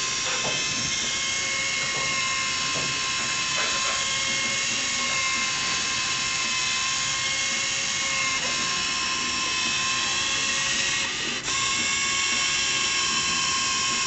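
Small DC motors of a fischertechnik lock-picking robot whining steadily through its plastic gears as they turn a combination lock's dial, stepping through combinations. Level stays even, with a brief dip and a click about eleven seconds in.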